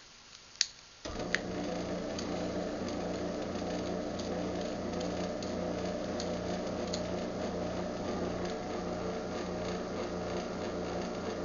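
A few clicks from the remote and the opener's relay, then about a second in a Craftsman garage door opener's motor starts and runs with a steady hum as it drives its opening cycle.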